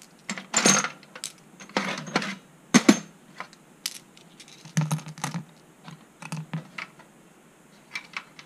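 Small quarter-inch-drive Husky steel sockets clinking against one another and clattering as they are handled and set down one by one, in a string of sharp clinks, loudest about three seconds in.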